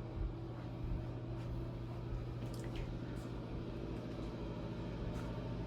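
Steady low hum of indoor room tone, with a few faint ticks.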